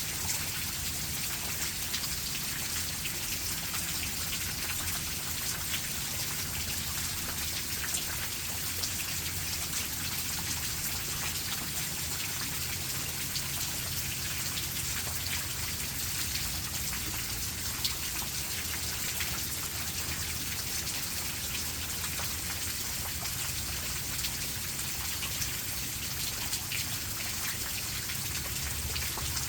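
Steady rain, with many individual drops pattering on a surface over an even hiss and a low rumble underneath.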